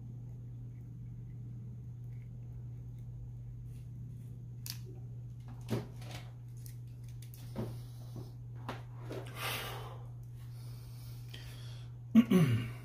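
Small clicks and taps from soldering subwoofer voice coil wires to the tinsel leads, over a steady low hum. There is a short hiss about midway and a louder brief sound with a falling pitch near the end.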